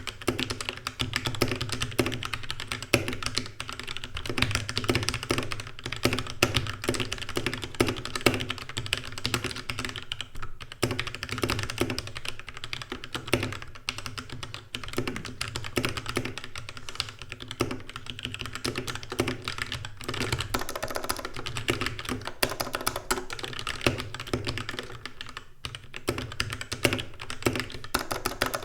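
Mechanical keyboard with Gateron Yellow linear switches being typed on fast and hard, the keys bottoming out in a dense, continuous clatter.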